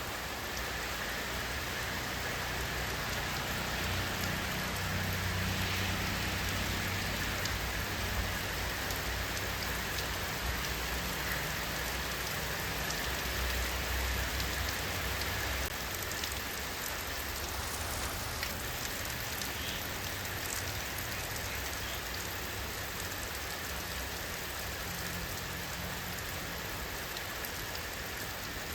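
Steady rain falling, a dense even hiss of drops hitting a surface, with a deeper low rumble mixed in for several seconds early on.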